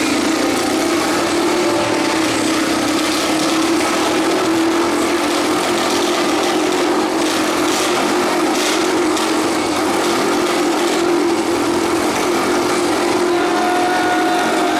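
Motorcycle engine running at a steady, even note as the bike circles the vertical wooden wall of a Wall of Death drum, heard from the centre of the drum.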